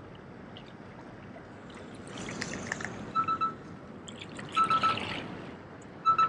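Sea water washing and trickling among jetty rocks in a steady wash that swells about two seconds in. From about three seconds in come three short, loud, high-pitched chirping bursts of a few quick pulses each, spaced about a second and a half apart.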